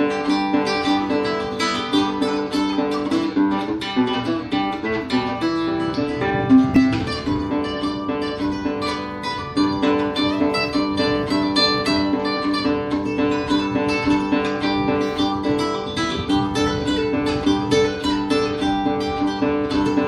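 Instrumental music of quickly plucked strings, a steady repeating picked pattern over held low notes, with a brief run of notes and one louder accent a few seconds in.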